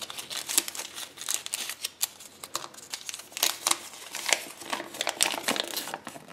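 Thin printed wrapper of a Kinder Surprise toy crinkling as it is unwrapped and unfolded by hand, in quick irregular crackles.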